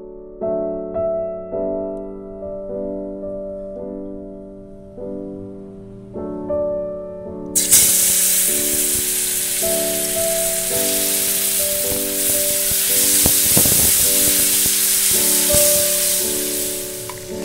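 Garlic paste sizzling loudly in hot oil in a pan. The sizzle starts suddenly a little under halfway in and fades near the end, over soft piano music.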